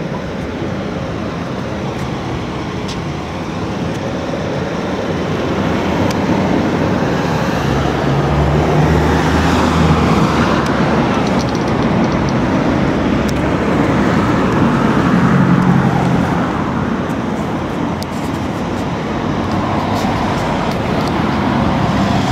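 Street traffic passing: steady road noise, with a vehicle engine's low hum swelling and fading twice, about a third of the way in and again past the middle.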